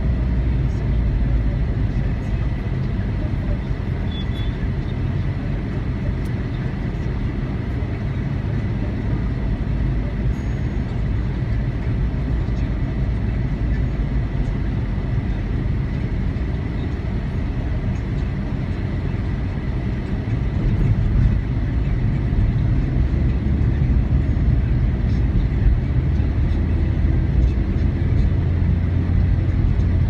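Car engine and road noise heard from inside the cabin while driving slowly in traffic: a steady low rumble that grows louder about two-thirds of the way through.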